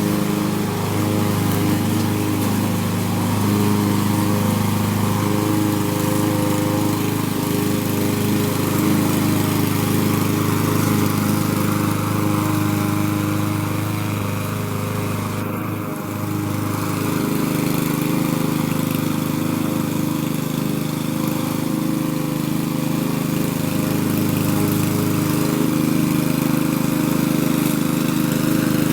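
Power lawn mower running steadily while cutting grass. The engine note dips briefly about halfway through, and its lowest tone wavers on and off in the second half.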